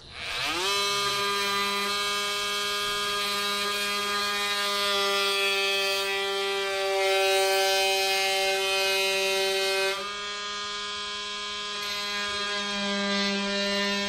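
Cordless Ryobi oscillating multi-tool cutting a hinge slot into wood. It starts right away, its whine rising quickly to speed, then runs steadily, dipping briefly about ten seconds in.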